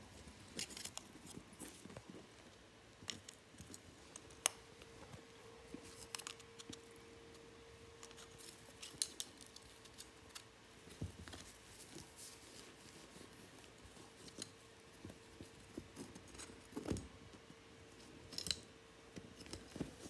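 Faint, scattered clicks, taps and small metallic clinks as a baby galah plays on its back with a wooden craft stick strung with small metal rings, the rings jingling against the wood. A faint steady hum sits underneath from about four seconds in.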